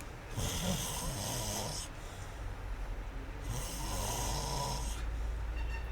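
Snoring: two long snores about three seconds apart, each a low rumble with a hiss over it, with quieter breathing between them.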